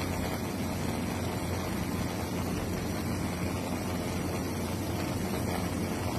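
Steady drone of an aircraft heard from inside the cabin: a constant low hum under an even rushing noise, unchanging throughout.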